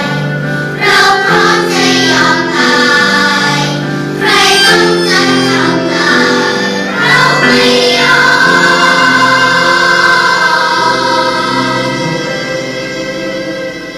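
Children's choir singing a Thai song; about eight seconds in they settle on a long held final chord that slowly fades away.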